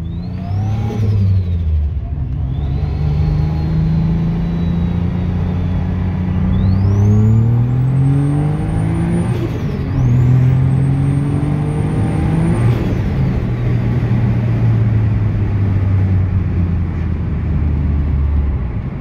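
Turbocharged flat-six engine of a Subaru Impreza WRX pulling hard. Its engine note and a high turbo whistle climb together, drop about halfway through, climb again, then fall away as the throttle is lifted, where the turbo flutters.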